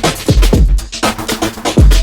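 Electronic dance music with a steady beat: deep kick drums, a sustained synth chord and quick hi-hats.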